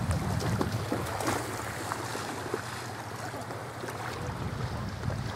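Small waves lapping and splashing in shallow bay water at the shoreline, with wind rumbling on the microphone.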